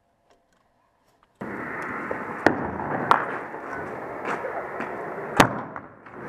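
Wind noise on the microphone of a body-worn camera, starting suddenly after a moment of near silence, with a few sharp clicks or knocks. The loudest click comes about five seconds in.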